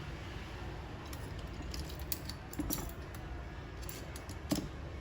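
Scattered light clicks and taps of small repair tools and parts being handled on an opened iPhone 8, with one slightly louder tap near the end.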